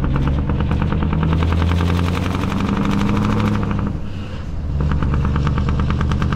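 Scania R520's V8 diesel through a straight open exhaust pipe, pulling under load with a rapid, even throb, heard from inside the cab. It dips for a moment about four seconds in, then pulls hard again from low revs, around 1100 rpm.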